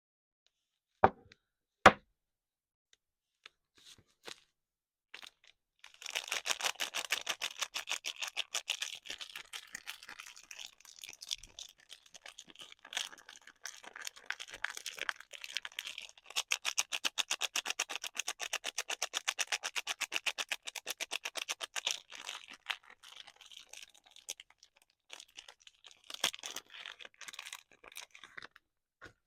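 Soap packaging being unwrapped by hand: two sharp clicks, then long runs of dense crackling and tearing of paper or plastic wrapping, with short pauses.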